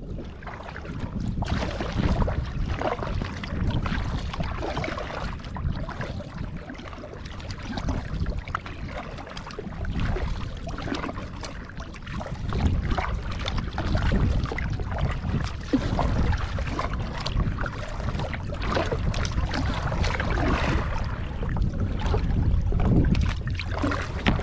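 A kayak being paddled: the paddle blades splash as they dip into the water again and again, and water washes against the hull. A steady wind rumbles on the microphone underneath.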